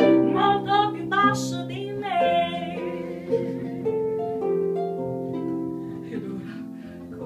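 Blues band music with no words: a quick run of wavering high notes in the first two seconds and a short falling slide, then held plucked-string chords that slowly fade.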